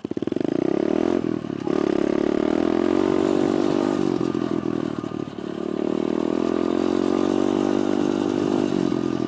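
Small pit bike engine revving as the bike pulls away and rides off. Its pitch rises and falls with the throttle, and the note drops out briefly a few times.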